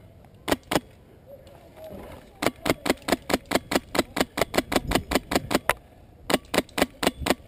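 Airsoft gun firing close by: two sharp shots, then long strings of evenly spaced shots at about six a second, with a short break between strings.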